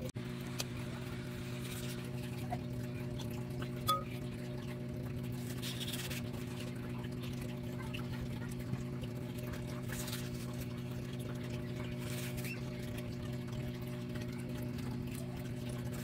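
Knife slicing through ripe mango flesh and skin, with soft scratchy cutting and scraping sounds and a short clink about four seconds in. A steady low electrical hum runs underneath.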